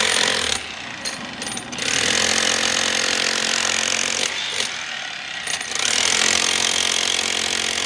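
A power tool on a construction site running in spells of a couple of seconds each, with short pauses between them.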